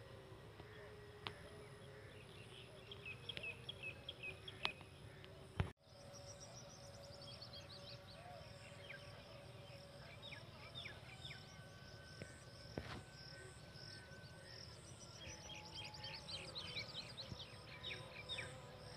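Quiet rural outdoor ambience: birds chirping in short, quick series over a steady low background noise. A sudden thump and a brief cut-out about six seconds in.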